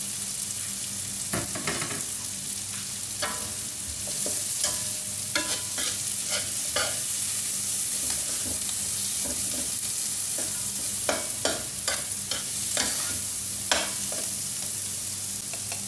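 Onions and red bell pepper sizzling in hot oil in a nonstick pan while being stirred with a metal spoon, which scrapes and clicks against the pan at irregular moments over the steady sizzle.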